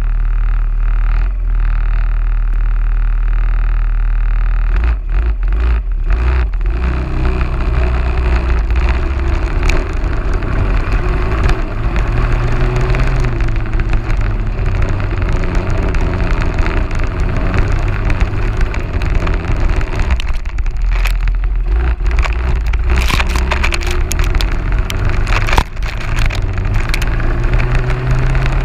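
Quad bike engine idling, then pulling away about five seconds in and running on through long grass, its pitch rising and falling with the throttle. Brief knocks and rustles come through now and then, most around the middle and near the end.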